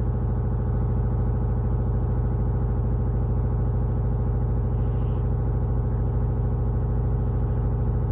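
A blue-grey British Shorthair cat purring loudly and steadily, a low, even, rapidly pulsing drone.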